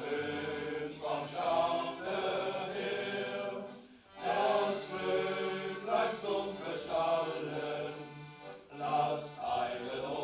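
A men's choir singing a slow song in several voices, with a short break between phrases about four seconds in.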